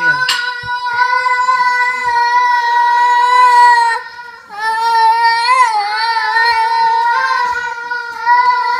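A young child's voice holding long, loud, high wordless notes: one held for about four seconds, a brief break, then a second long note that wavers once in pitch.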